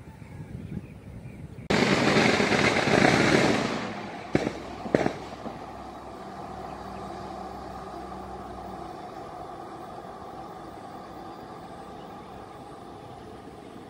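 Outdoor vehicle noise by an elevated rail line. A loud rush of sound starts abruptly about two seconds in and lasts about two seconds. Two sharp clicks follow, then a steady distant hum.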